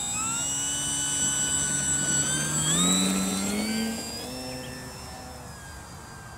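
Electric motor and propeller of a Durafly Tundra RC model plane whining at take-off power as it rolls across the grass. About three seconds in the pitch rises and the sound is at its loudest. After that the whine fades as the plane climbs away.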